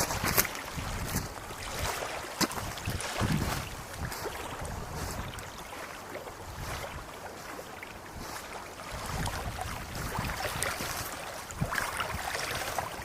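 Gusty wind buffeting the microphone, rumbling in surges, with a few sharp clicks.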